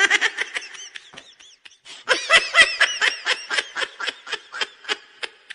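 High-pitched giggling laughter, a fast run of short laughs that fades briefly about a second in and grows louder from about two seconds.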